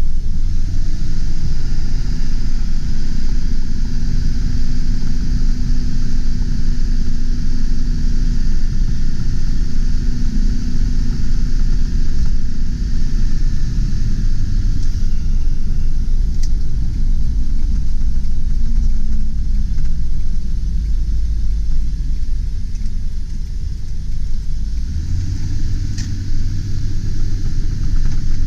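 The 7.3L Power Stroke turbo diesel V8 of a 1999 Ford E450 Super Duty box truck running, its note shifting in pitch several times, over a steady high hiss. Two short clicks, about sixteen and twenty-six seconds in.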